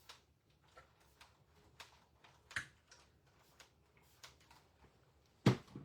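Light, irregular clicks and taps from craft supplies being handled on a work table, with two louder sharp knocks, one about halfway through and one near the end.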